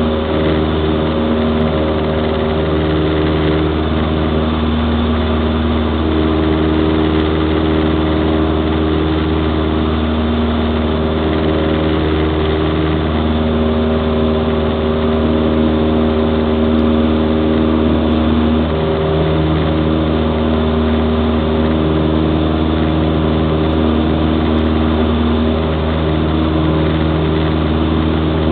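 Cessna 172's piston engine and propeller running steadily in flight, heard from inside the cockpit: a constant drone whose tones waver slowly.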